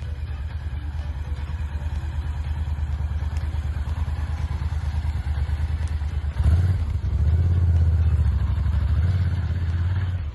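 Honda XL1000 Varadero's V-twin engine running, with a pulsing exhaust note that grows louder about six and a half seconds in and stays loud until just before the end.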